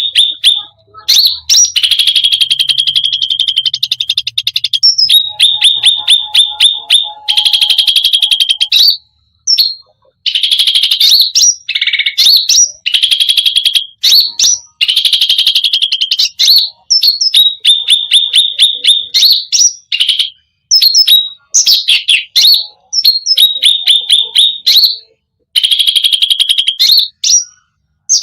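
Cucak rante songbird singing a loud, varied song packed with different phrases: fast rattling trills and runs of sharp chirps, broken every few seconds by short pauses.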